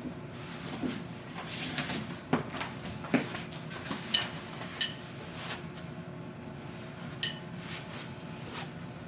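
Play yard parts being handled and fitted together: scattered clicks and knocks, with three short metallic pings, two close together near the middle and one later.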